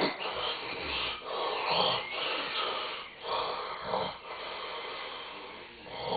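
A person snoring heavily: a string of harsh, noisy breaths, each about a second long, following one after another.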